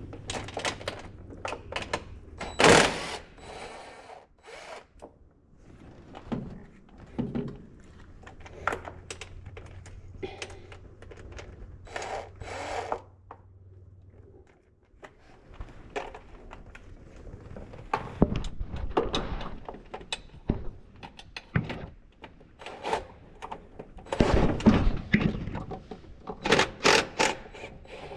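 Hand tools clinking and knocking against metal engine parts in irregular bursts as the fuel rail fasteners on an LS V8 are undone. A low steady hum stops about halfway through.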